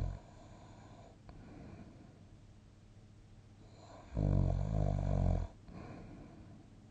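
A sleeping person snoring: soft breathing, then one loud fluttering snore about four seconds in that lasts over a second.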